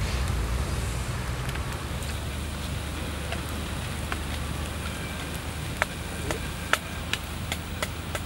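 Beef steak sizzling on a fire-heated stone slab: a steady hiss, with sharp crackling pops that come more often from about halfway through.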